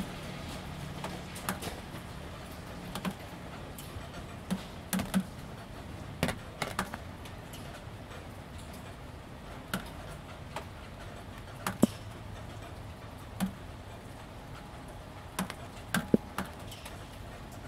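Light, steady drizzle: a soft hiss of rain with irregular sharp taps, one or two a second, of drops landing on corrugated roofing panels.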